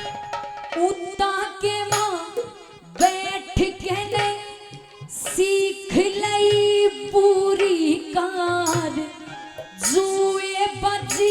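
Haryanvi ragni folk music: a melody line of long held, bending notes over hand-drum strokes.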